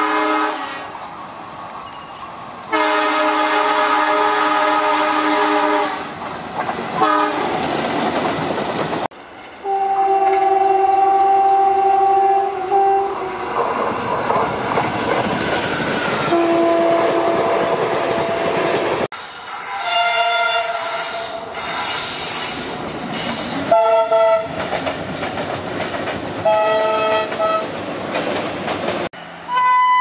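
Indian Railways locomotive horns sounding as trains pass. First comes a long multi-note blast from an ALCO diesel locomotive, broken off and blown again a couple of seconds later, followed by the rumble and wheel clatter of its coaches. Further horn blasts follow from other trains: steady two-note blasts and then a few short toots, with the clatter of passing coaches between them.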